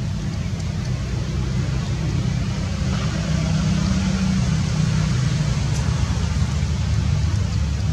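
Steady low rumbling background noise with a faint hiss over it, a little louder after about three seconds.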